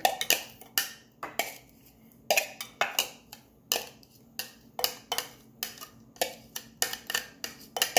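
Metal spoon scraping and knocking against the inside of a plastic food-processor bowl, clearing out blended chili paste: a string of sharp, irregular taps and scrapes, about two a second.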